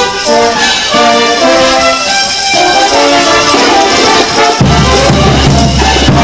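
Festival brass band playing a melody, with tambourines jingling along; about four and a half seconds in a deep, loud bass comes in under the tune.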